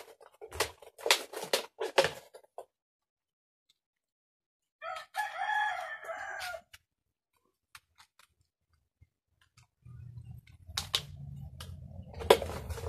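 A rooster crows once, about five seconds in, a pitched call lasting under two seconds. Before it comes a quick run of sharp clicks and scrapes from a knife worked into the soil of the pot. Near the end a low steady hum comes in, with more clicks.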